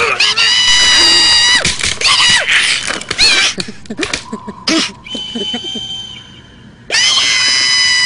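High-pitched, squeaky gibberish voices of ZooZoo cartoon characters squealing and whimpering in alarm. After a quieter spell, a long high-pitched wail breaks out sharply about seven seconds in, as one character falls from the branch.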